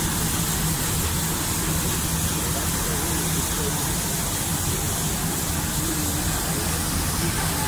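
Steam tank locomotive running along the line, heard from the engine itself: a steady rushing noise of the moving train and air over a low steady hum, with no separate exhaust beats standing out.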